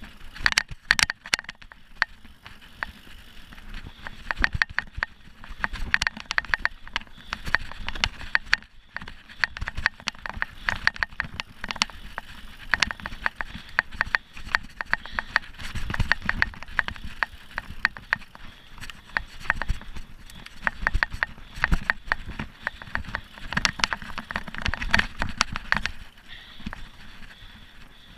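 Mountain bike clattering over a rough dirt trail: a dense, uneven run of rattles and knocks with tyre rumble underneath, easing off briefly near the end.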